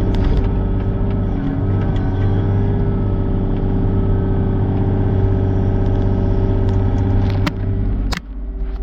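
Mini excavator engine running steadily under work, with a deep rumble. Sharp knocks come about seven and a half seconds in and again just after eight seconds, when the low rumble drops away.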